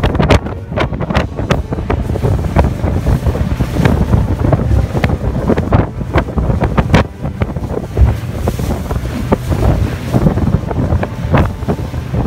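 Wind buffeting the microphone aboard a small boat on the water: a loud, low rumble broken by frequent irregular gusts and knocks.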